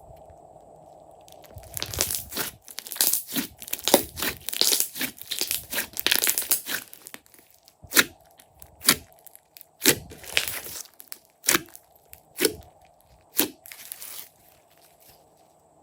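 Slime being squeezed and worked by hand. It crackles and pops densely for several seconds, then gives single sharp pops about once a second.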